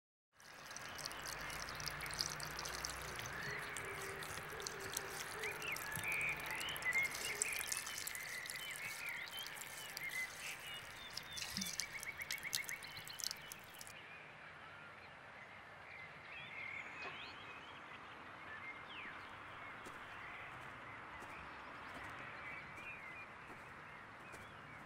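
Outdoor ambience: birds chirping over a steady background hiss, with scattered clicks. The hiss and clicks drop to a quieter level a little past halfway.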